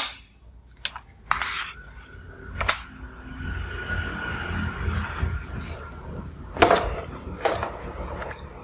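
Steel ruler being picked up, laid down and slid over a flat sheet while marking out, giving scattered sharp metallic clicks and short scrapes, the loudest clatter near seven seconds in.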